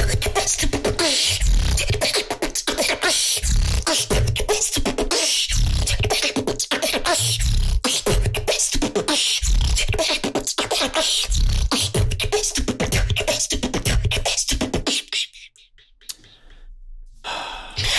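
A young beatboxer performing a fast, dense routine of mouth-made drum hits with deep bass under them. It breaks off to near silence about 15 seconds in and starts again about two seconds later.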